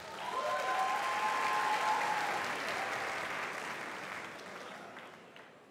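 Large theatre audience applauding, with a few cheers early on. It swells in the first second, then fades steadily over about five seconds.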